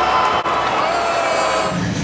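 Hockey arena crowd noise after a goal, with cheering and voices calling out over it. There is a brief drop about half a second in.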